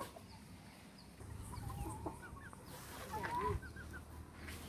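Country chickens clucking as they feed: short, soft calls in small groups about one and a half and three seconds in, the second group the loudest.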